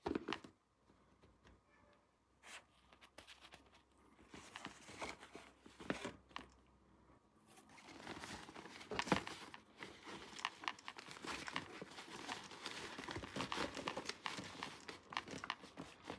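Toy packaging being handled and opened by hand: a few scattered clicks at first, then crinkling and tearing that grows denser and runs steadily through the second half.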